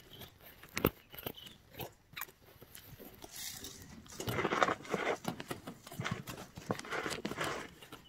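A young vervet monkey at the camera, its face and fur bumping and rubbing against the microphone. There are scattered sharp taps and clicks, and two longer scratchy rustles about four and seven seconds in.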